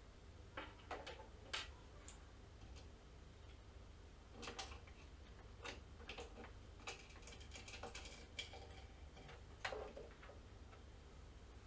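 Scattered light clicks and taps of small hardware being handled in a PS5's M.2 expansion slot: screw, screwdriver and NVMe SSD, with a quick cluster of clicks past the middle. A faint low hum sits underneath.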